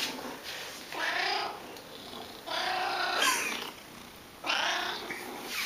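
Domestic cat meowing three times, each call lasting about half a second to a second, begging to be given tuna.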